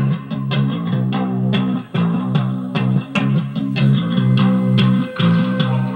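Guitar music played from a clip MP3 player through a homemade TDA2822 amplifier into a pair of small speakers: a steady run of plucked notes with no deep bass.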